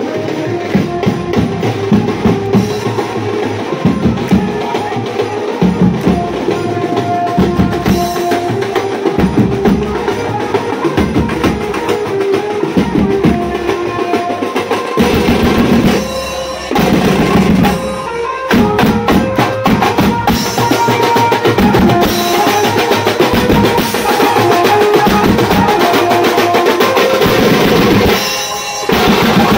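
Live band playing dance music: a drum kit and large bass drums beaten with mallets keep a fast, steady beat under a keyboard melody. The beat drops out briefly twice past the middle and once near the end.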